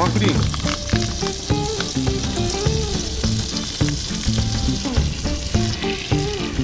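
Butter sizzling and bubbling in a hot pan over a gas camp burner, with cream poured in near the end. Background music plays underneath.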